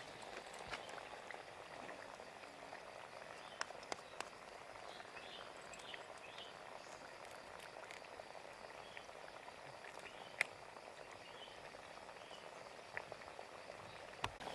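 Urad dal vadas deep-frying in hot oil: a faint, steady sizzle, with a few sharp clicks, the loudest about ten seconds in.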